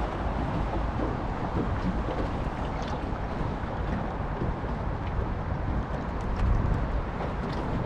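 Steady wind noise buffeting the microphone on a small fishing boat on open water, a constant low rumbling haze with no engine note.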